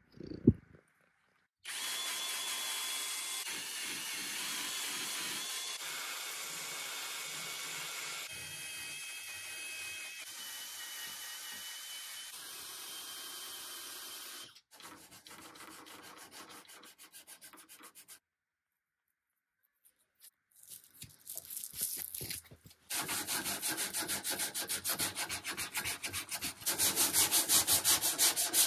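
A single sharp knock, then a drill with a small sanding disc running against a curved mahogany dresser leg: a steady whir with a faint motor whine. After a short silence, the leg is hand-sanded with a sanding sponge in fast, rhythmic rubbing strokes that grow louder near the end.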